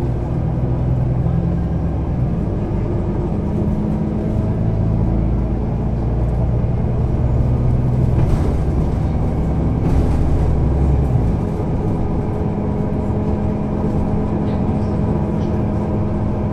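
Solaris Urbino 18 Hybrid articulated bus's diesel-electric hybrid drive running: a steady low engine drone with shifting tones, the deepest part dropping away about eleven seconds in.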